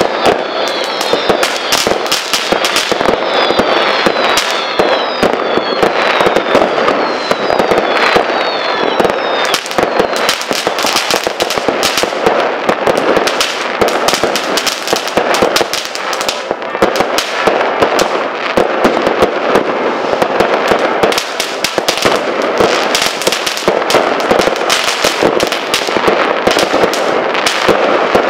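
New Year's Eve fireworks going off all around: a dense, continuous crackle of many bangs and firecracker reports. Over the first nine seconds or so it is laced with repeated short, falling whistles.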